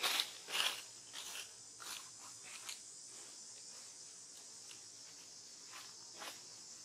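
Steady, high-pitched drone of an insect chorus. A few short crunching, scuffing noises come in the first two seconds, and one more about six seconds in.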